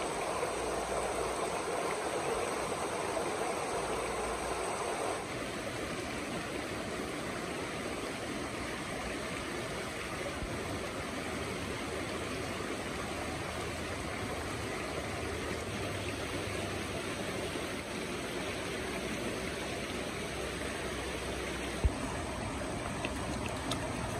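Shallow forest stream rushing steadily over rocks, a little louder for the first five seconds. A single sharp knock near the end.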